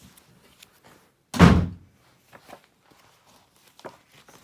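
A single heavy, dull thump about a second and a half in, amid faint rustling and small clicks of handling.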